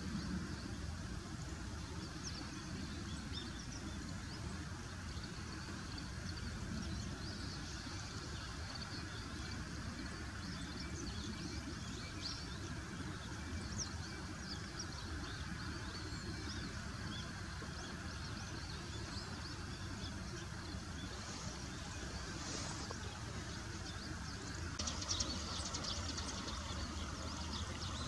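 Outdoor riverside background: a steady low rumble with faint, scattered high bird chirps, and a steady hiss that comes in near the end.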